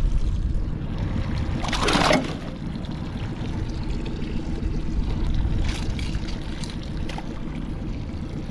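Water splashing and sloshing beside a small fishing boat, with a louder splash about two seconds in and a weaker one near six seconds, over a low rumble and a faint steady hum.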